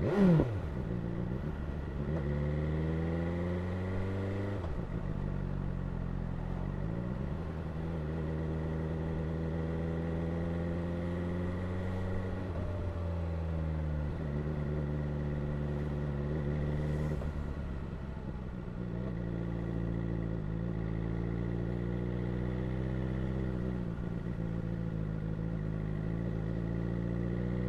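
BMW S1000R inline-four engine running under way, with a sharp quick rev blip at the start. Its note then holds steady, rising slowly and dropping back several times as the throttle changes.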